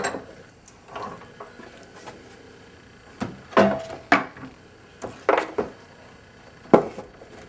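Tools and metal parts being handled and set down on a workbench: several separate knocks and clunks, a couple of them with a brief metallic ring.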